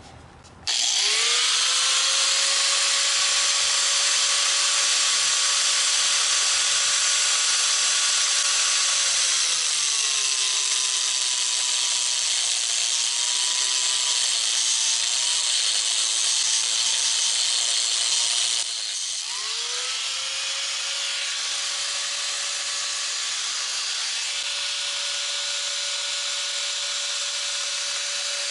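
Handheld electric angle grinder spinning up to a steady whine about a second in; from about nine seconds its pitch sags and wavers as the disc is pressed into a clamped hickory limb, grinding the wood. Near the middle it cuts off, and a power tool spins up again straight away and runs steady, a little quieter.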